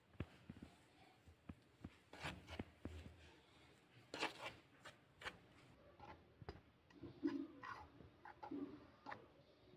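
Metal spoon stirring dry flour and oil in a plastic bowl: soft scraping and rubbing, with scattered light clicks and taps of the spoon against the bowl and a few louder scrapes.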